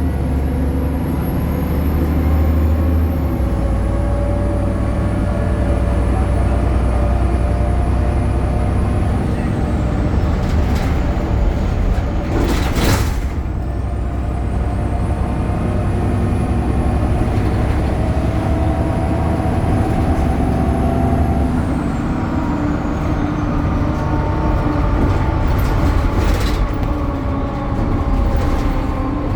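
BredaMenarini Avancity Plus city bus running on its Deutz Euro 5 diesel engine and ZF automatic gearbox: a steady low drone, with whines that rise and fall in pitch as the bus speeds up and slows. Near the middle comes one short, loud hiss of air, typical of the air brakes or pneumatic system.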